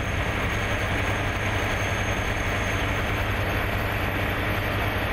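Engine running steadily: an unchanging low hum under a broad hiss.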